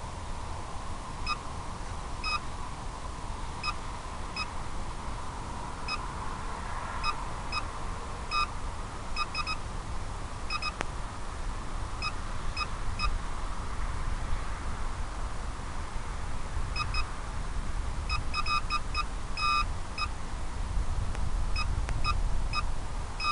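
Short electronic beeps, single and in quick runs of two to four, at uneven intervals, over a steady low rumble of air and motor noise from a small FPV aircraft in flight.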